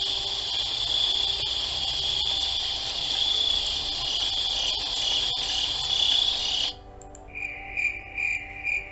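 Insect sounds: a continuous high-pitched trill cuts off about seven seconds in. It is followed by a cricket chirping in regular pulses, about three a second.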